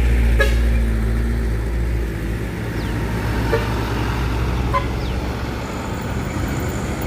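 A large road vehicle's engine passing close with a deep steady drone that fades away, and a few short horn toots.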